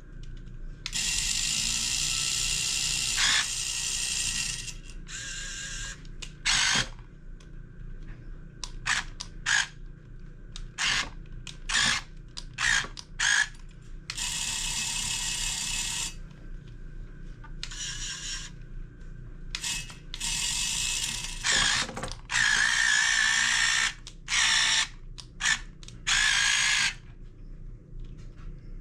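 Small electric gear motors of a 1:16 scale radio-controlled Cat 272D skid steer whining in stop-start bursts, some brief blips and some runs of one to three seconds, as it is driven and its arms work.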